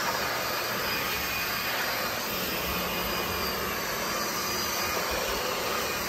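Oraimo bendable cordless stick vacuum running steadily on its auto suction setting as its powered floor head is pushed across a rug: an even rushing hum with a faint steady whine.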